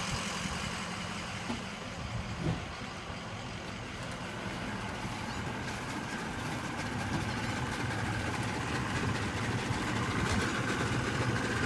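An engine idling steadily, slowly growing a little louder, with a couple of light knocks in the first few seconds.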